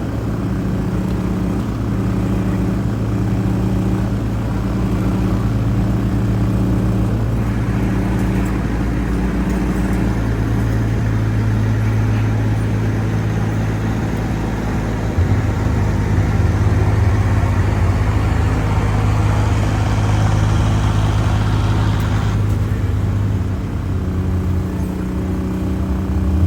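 Car engine running steadily while driving, its drone getting louder about halfway through and easing back near the end.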